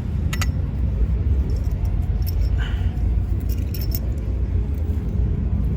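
A few light metallic clinks from the boat seat's bolt hardware as the seat is handled and flipped over, over a steady low rumble.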